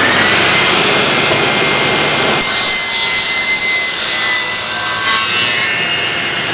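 Festool TKS 80 table saw running at speed, cutting through an MDF panel. The cut starts a couple of seconds in and is louder and hissier for about three seconds, then the blade runs free again with a steady whine.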